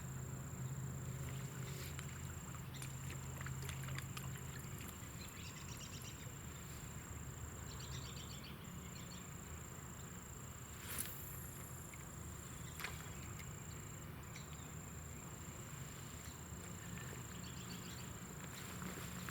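Quiet outdoor ambience: a steady high-pitched buzz with a few brief breaks over a low hum, with faint chirps around the middle and two soft clicks.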